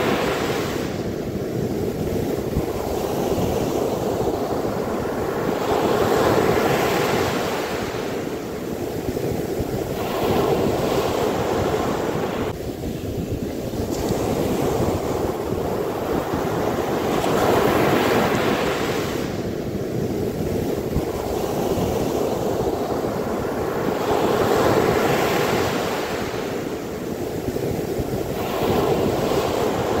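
Ocean surf breaking and washing up a sandy beach. The rush swells and ebbs in slow surges, about five or six in all, as each wave breaks and its foam slides up the sand.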